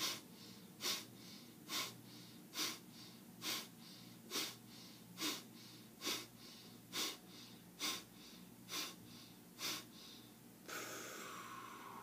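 A man doing the quick out-breath pranayama exercise: short, forceful exhalations about once a second, twelve in a row. Near the end the pumping stops and a long, drawn breath begins, with a whistle that falls in pitch.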